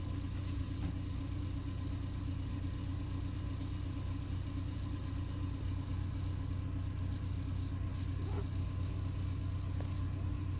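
Steady low mechanical hum, even and unchanging throughout.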